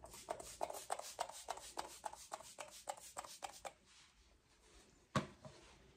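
Pump bottle of MAC Fix+ setting spray spritzed over and over in quick succession, about four short hissing sprays a second for nearly four seconds. A single sharp click follows about five seconds in.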